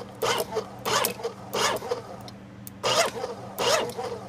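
Paper shredder converted into a plastic shredder, its motor humming steadily while the cutters grind small failed 3D-printed plastic parts. Loud rasping crunches come in irregular bursts, roughly one a second, as pieces are caught and chewed.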